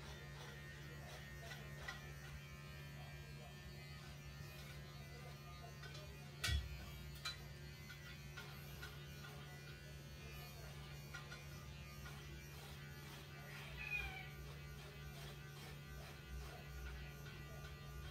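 Electric hair clippers buzzing steadily as they shave a cat's fur. A single knock about six and a half seconds in is the loudest moment.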